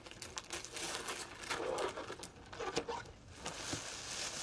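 Christmas wrapping paper crinkling and tearing as a present is unwrapped by hand, in short irregular rustles.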